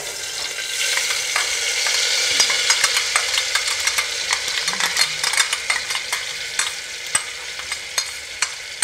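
Ground masala paste sizzling and crackling as it drops into hot ghee in an aluminium pressure cooker, with a spoon clicking and scraping against the steel mixer-grinder jar. The sizzle builds about a second in and slowly dies down.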